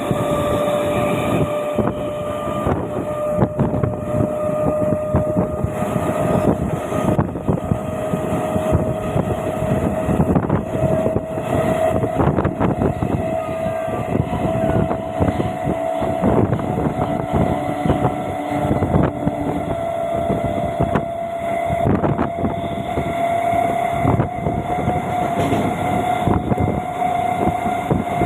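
A train moving at a station platform: a steady whine that slowly rises in pitch, over rumbling and rapid clatter.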